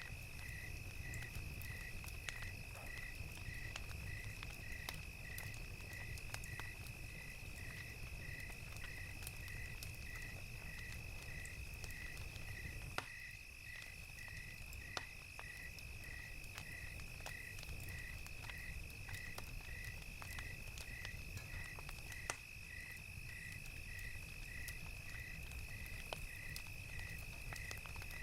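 Crickets chirping in an even rhythm, about three chirps every two seconds, over a continuous high insect trill, with a crackling fire giving scattered sharp pops over a low steady rumble.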